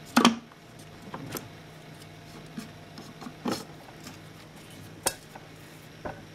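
Lid of a Thermomix TM5 mixing bowl set back in place with a clack, then a few light, separate clicks and knocks as the machine is handled.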